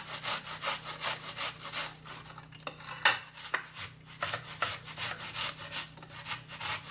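A red onion being rubbed back and forth on a hand grater, about three to four rasping strokes a second. The strokes stop for a couple of seconds, with a single sharp knock near the middle, then start again.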